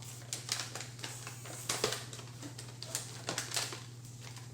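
Irregular sharp clicks and short rustles of a gumball machine and its packaging being handled and unpacked, over a steady low hum.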